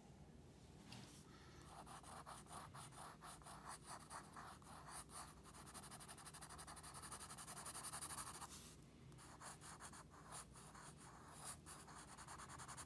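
Graphite pencil shading on drawing paper: faint, rapid scratchy strokes, laying down tone inside a drawn cylinder. The strokes start about a second and a half in and pause briefly about nine seconds in.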